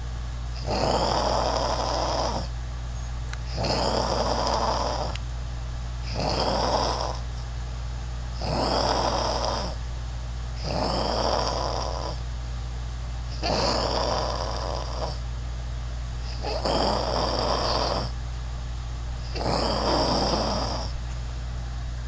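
A person snoring: eight snores, each lasting a second or more, coming about every two and a half to three seconds, over a steady low hum.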